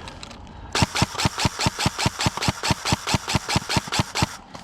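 Airsoft gun firing on full auto: a steady stream of sharp shots, about six a second, starting about a second in and stopping just before the end, lasting about three and a half seconds.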